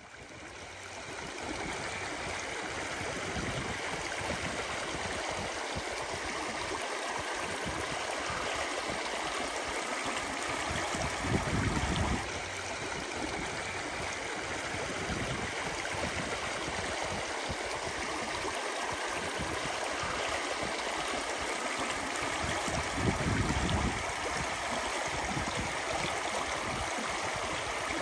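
Creek water flowing, a steady rush that fades in over the first couple of seconds. Two brief low thumps come partway through and again near the end.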